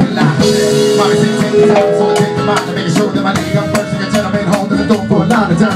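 Live band playing with drums and hand percussion under sustained held notes.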